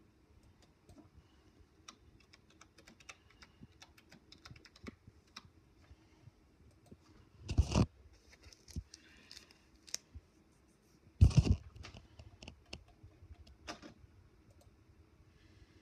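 Irregular light clicks, with two loud, brief thumps about seven and a half and eleven seconds in.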